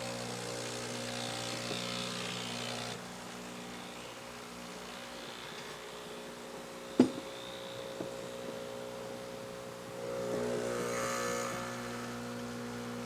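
Espresso machine's vibratory pump buzzing steadily while it pulls a shot, louder in the first few seconds and again near the end. There is a single sharp knock about seven seconds in.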